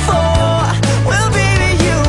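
Pop-rock song playing, with a sung vocal line over bass, guitar and drums.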